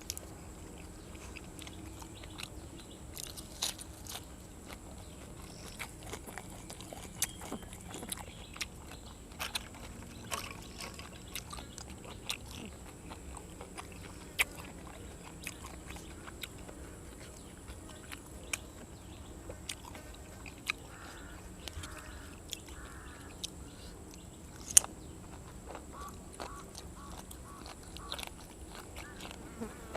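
Close-up eating sounds: crisp, irregular bites and crunches with wet mouth clicks as grilled cuttlefish and raw vegetables are chewed.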